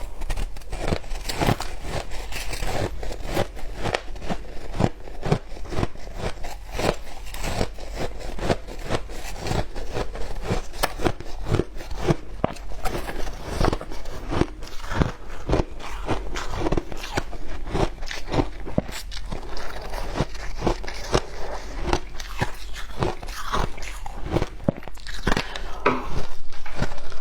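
Frozen matcha ice being bitten and chewed close to the microphone: a dense, continuous run of sharp crunches, several a second.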